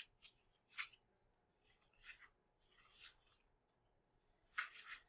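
Faint, brief scratching and rustling of a paper worksheet being handled: a few short strokes, the loudest near the end.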